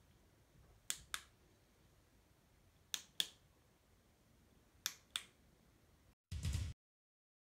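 Flashlight push-button switch clicking, in pairs about a quarter second apart and repeated roughly every two seconds, four times. Near the end comes a brief low rumbling burst, then the sound cuts off.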